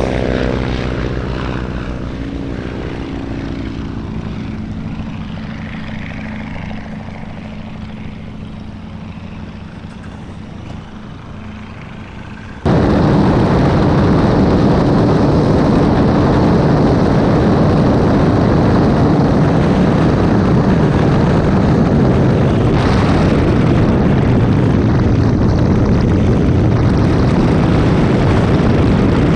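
Boeing Stearman biplanes' radial engines running at takeoff power, a steady propeller drone that fades gradually as they climb away. About twelve seconds in it cuts off abruptly to a much louder, steady rushing noise.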